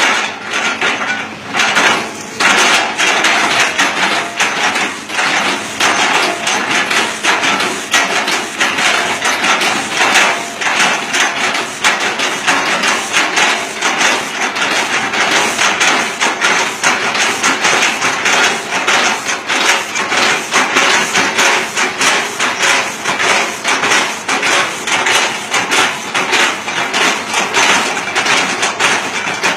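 The bucket of a Hitachi Zaxis 200-5G excavator repeatedly striking and chopping an oil palm trunk. It makes a rapid, continuous run of woody knocks and crunches.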